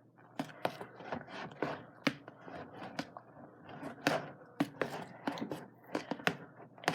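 Stirring a glue and shaving-cream fluffy slime mixture in a bowl: a utensil scraping and knocking against the bowl in irregular strokes, several a second.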